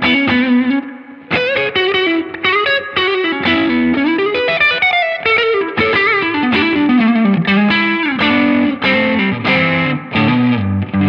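Electric guitar played through a Laney Lionheart Foundry combo amp's clean channel, with a pedal added and the amp's reverb turned up: a lead phrase of single notes with bends and slides, a short break about a second in, ending on a ringing chord.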